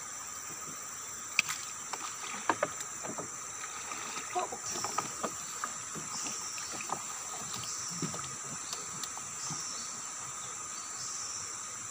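Knocks and thuds on a wooden longboat as a gill net with fish is hauled in over the side; the sharpest knocks come in the first few seconds. A steady high insect drone runs underneath, with a rising high chirp repeating about every second and a half from about midway.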